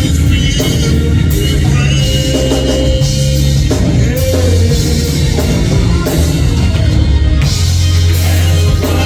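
Live gospel church band playing: drum kit, bass and guitar, with voices singing over it.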